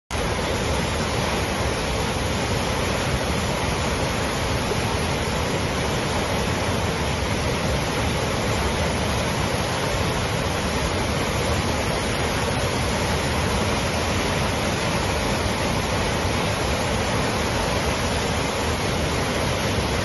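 Muddy floodwater rushing through turbulent rapids: a loud, steady rush of churning water with no letup.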